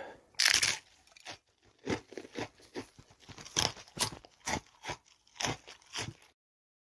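A series of short, irregular crunches, two or three a second, with a louder burst about half a second in, cutting off abruptly near the end.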